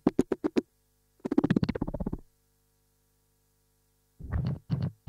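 Sparse experimental electronic music: a rapid stutter of clicky pulses, a dense burst a second later, then about two seconds of gap before three short bursts near the end, over a faint steady drone.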